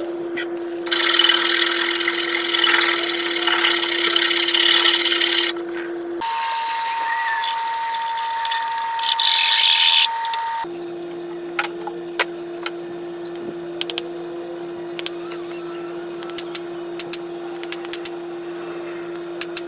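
A hand rasp scraping along a wooden hatchet handle in a run of strokes, then another stretch of scraping with a louder burst, followed by scattered light clicks and taps. A steady low hum runs underneath most of it.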